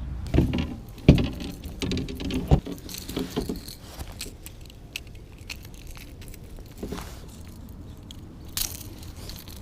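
A few sharp knocks and a light rattling clatter from gear being handled on a kayak, loudest in the first few seconds, then only scattered small clicks.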